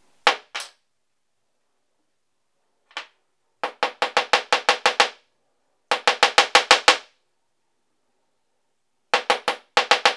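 Small hammer tapping a bicycle chain pin on a drilled steel block, metal on metal. Two taps, a single tap about three seconds in, then three quick runs of about seven strikes a second.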